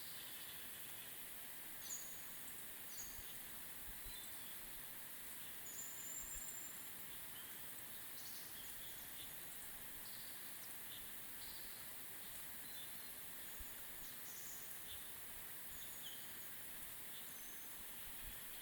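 Small birds giving short, high chirps and calls, scattered and overlapping, over a faint steady hiss of early-morning forest ambience.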